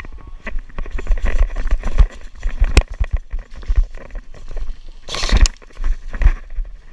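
Movement and handling noise from a camera worn by an airsoft player: irregular knocks, thumps and gear rustling. There is a sharp click about three seconds in and a louder rustle about five seconds in.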